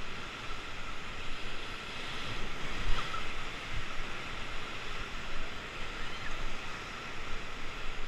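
Whitewater rapids rushing and churning steadily around an inflatable river raft as it runs the rapid, with a brief louder thump about three seconds in.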